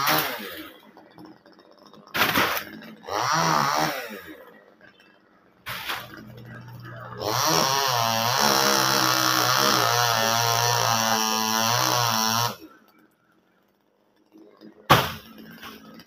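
Top-handle two-stroke chainsaw revving in short bursts, then running under load for about five seconds with its pitch wavering as it cuts, and stopping suddenly. A sharp crack sounds about a second before the end.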